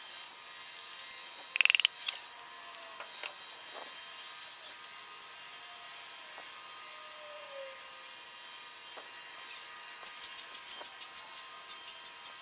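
A hand ratchet clicking in an even run of about five clicks a second near the end, while connecting-rod bolts are run down on an LS engine. Earlier, about two seconds in, there is a brief loud metallic rattle of rapid clicks.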